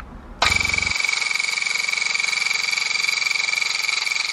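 Chinese cut-pile tufting gun switched on about half a second in and running with a loud, steady, fast mechanical buzz as its needle and scissors drive yarn through the primary cloth.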